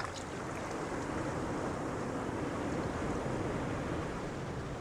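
Steady, even rushing noise like wind or surf, with no distinct knocks or tones.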